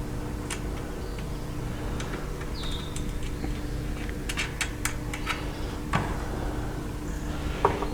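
Scattered clicks and light knocks of wooden coop panels and hardware being handled and fitted, over a steady low hum. There is a short falling squeak a few seconds in and a sharper knock about six seconds in.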